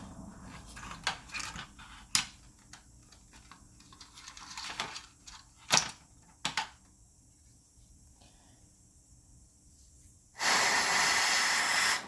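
Scattered light clicks and knocks of projector parts being handled during a teardown. Then the loudest thing: a steady hiss of noise that starts suddenly and cuts off about a second and a half later.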